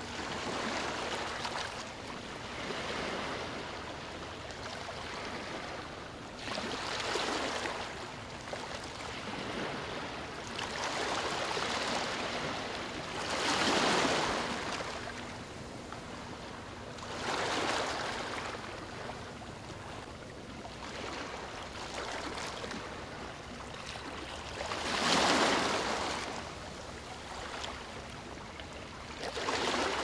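Small ocean waves breaking and washing up a sandy beach, a steady hiss of surf that swells into a louder rush every few seconds as each wave comes in. The two biggest breakers land near the middle and a few seconds before the end.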